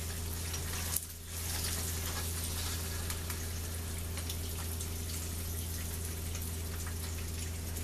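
Sunny-side-up eggs frying in butter in a skillet: a steady sizzle with fine crackles, dipping briefly about a second in, over a steady low hum.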